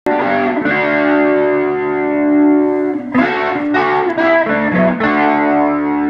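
Electric guitar played through a Leslie 147 rotating-speaker cabinet, with its rotating horn and bass drum: a chord rings and is held, a few quicker picked notes come about three seconds in, and then another chord is held.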